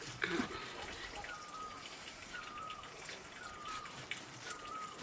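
A bird calling, a short chirp repeated about once a second, over a background of scattered faint clicks and crackle, with one sharp knock just after the start.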